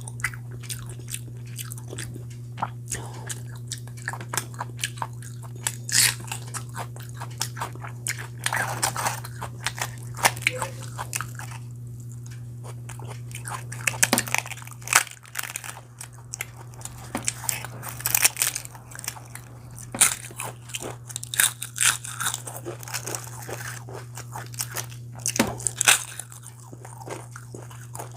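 A person eating chicken curry with puri: irregular biting and chewing with many sharp crunchy clicks. A steady low hum runs underneath.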